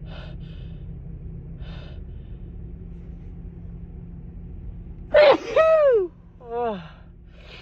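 A person with a cold sneezing: a couple of faint sniffing breaths, then about five seconds in a loud sneeze with a voiced cry falling in pitch, followed by a shorter falling voiced breath. The nose is stuffy and tickling from the cold.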